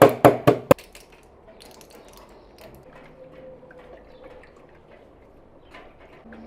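A quick run of hard knocks, about four a second, that stops within the first second. Then faint small clinks and a trickle of water, typical of a tablet being put into water to dissolve.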